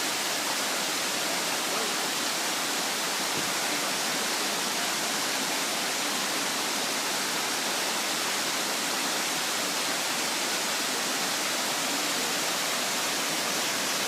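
Mingo Falls waterfall: a steady, even rush of falling water that does not change.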